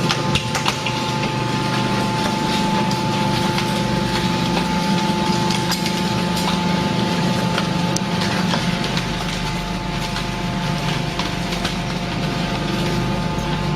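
YQD-2500 hydraulic car baler running: a steady machine hum and whine from its hydraulic power unit, with scattered metallic clicks and creaks. The lowest hum gets stronger about two thirds of the way through.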